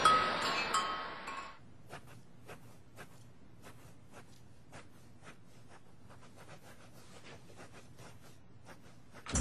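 A brief whooshing swell with bright chiming tones, then a pencil scratching on a sketchpad in faint, irregular short strokes, a few each second.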